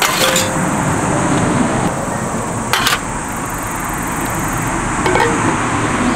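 A short light clatter about three seconds in as a metal hand coffee grinder is set down on a folding aluminium table. Fainter knocks come from items being handled, over a steady outdoor background noise with a high hiss.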